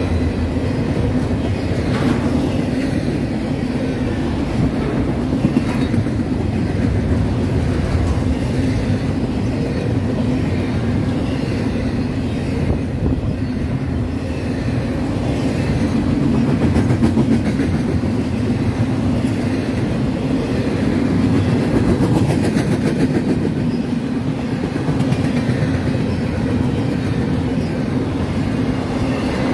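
A train rolling past, its wheels running steadily on the rails, with a steady hum under the rumble.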